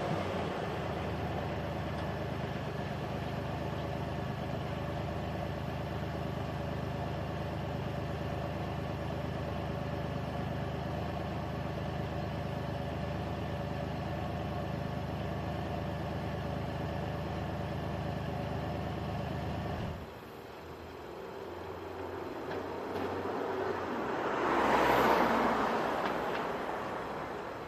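2000 Pontiac Firebird's 3.8-litre V6 idling steadily, then cutting off abruptly about two-thirds of the way through. A few seconds later a rushing sound swells and fades.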